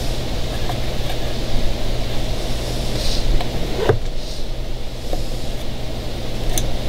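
A steady low hum over background noise, with a few small clicks and taps as a control cable end and its C-clip are fitted into a Yamaha 704 binnacle control box.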